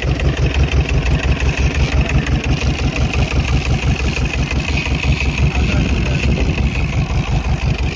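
A fishing boat's engine running steadily, with a fast, even pulsing beat and a steady higher whine above it.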